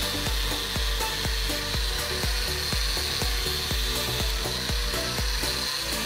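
Background music with a steady beat and stepping bass line, over the steady whine of a corded random orbital sander running.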